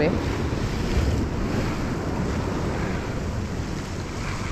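Wind blowing across the microphone over the steady wash of sea surf.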